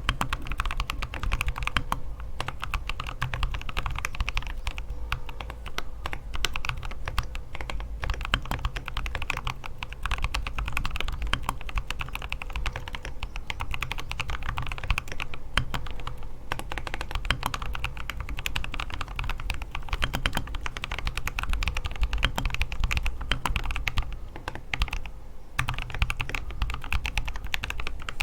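Fast, continuous typing on a KBDfans Odin custom mechanical keyboard with lubed Boba U4T tactile switches, MT3-profile keycaps and a brass plate in a gasket-mounted aluminium case. The keystrokes let up briefly near the end, then carry on.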